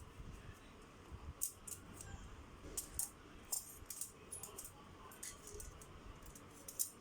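Small construction-kit parts being handled and fitted together: a scatter of light, irregular clicks and rattles, with a few sharper clicks about a second and a half in, around three seconds, and near the end.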